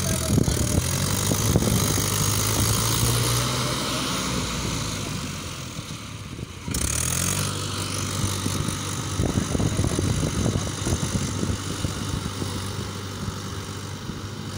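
Mahindra tractor's diesel engine running steadily as the tractor works through a flooded, muddy paddy field on cage wheels. The sound changes abruptly about seven seconds in.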